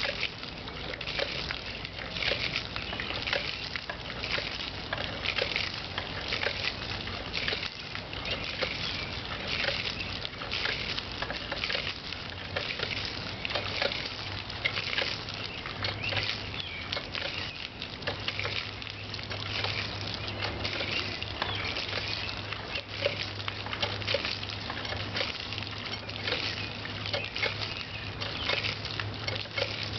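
Restored Dempster No. 2 cast-iron pitcher pump being worked by hand, its water splashing from the spout in rhythmic surges with the strokes of the handle.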